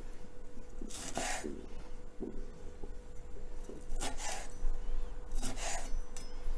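Kitchen knife cutting tomato pieces on a wooden cutting board: three short scraping strokes of the blade across the wood, about a second in and twice near the end, with small soft knocks between them.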